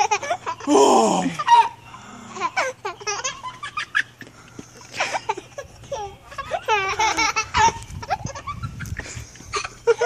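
A toddler laughing in repeated high-pitched bursts, giggles and belly laughs, while being swung.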